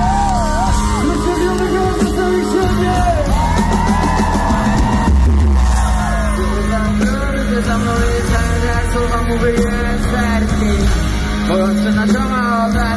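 Loud live music in an arena: a male vocalist singing into a microphone over a backing track with a steady deep bass, his voice sliding up and down in pitch, with yells from the crowd.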